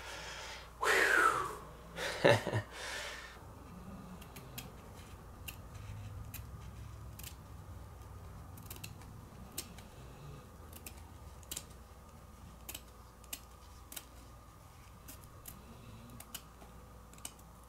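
Scissors cutting through nylon tent fabric, a long run of small, irregular snipping clicks. In the first three seconds there are a few louder rustles of the fabric being handled.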